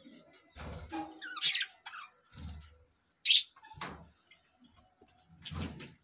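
Budgerigars chirping: several short, sharp calls, the loudest about three seconds in, among a few soft low thumps.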